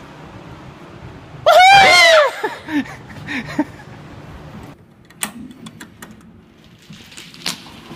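A woman's short, high-pitched scream of fright about a second and a half in, rising then falling, followed by a few short vocal sounds. Then a few sharp clicks and knocks.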